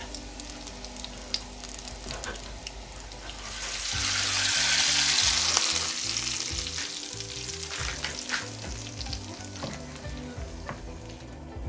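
Tadka of cumin seeds and dried red chillies sizzling in hot oil. The sizzle swells much louder from about four to six seconds in as the hot oil is poured over the cooked dal, then dies back while a spoon stirs it in.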